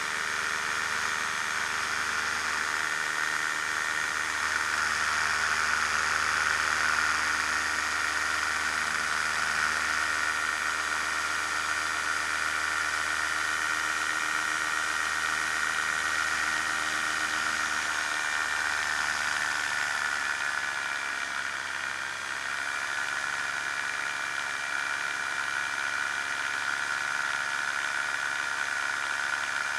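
Challenger II ultralight's pusher engine and propeller running at high power through a ski takeoff and climb-out, with steady wind rush. The engine speed eases down a little about twenty seconds in, then holds steady.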